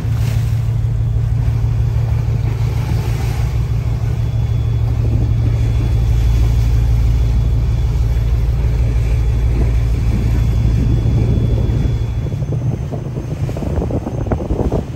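A small boat's engine running with a steady low drone, mixed with wind buffeting the microphone and choppy waves splashing. The drone drops away about twelve seconds in, leaving mostly wind and water.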